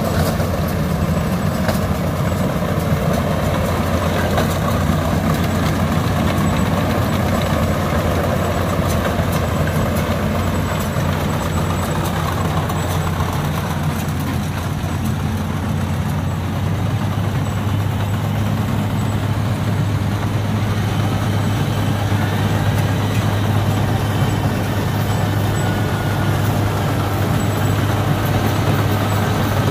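Yanmar AW82V combine harvester's diesel engine running steadily under load while it cuts standing rice, a continuous low mechanical hum that grows stronger about two-thirds of the way through.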